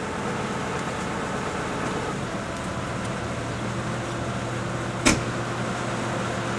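Vehicle engine running steadily, with a single sharp knock about five seconds in.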